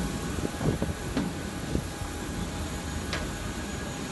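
Airport apron noise: a steady hum and rumble with a thin, high steady whine from jet aircraft on the apron, broken by a few light knocks.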